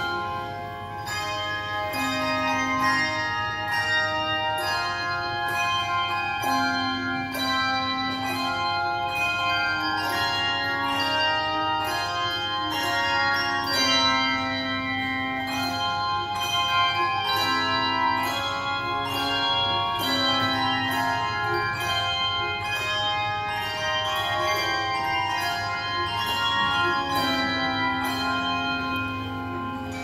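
Handbell choir playing a piece: many handheld bells struck in turn, their clear notes ringing on and overlapping, with longer low bell notes sounding underneath every few seconds.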